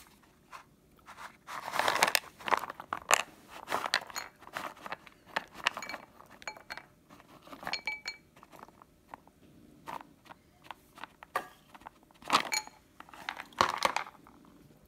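Roasted almonds rattling in a plastic tub and being handled and set onto a plate of ice cream: scattered irregular clicks and rattles, with a few short ringing clinks about two-thirds of the way through.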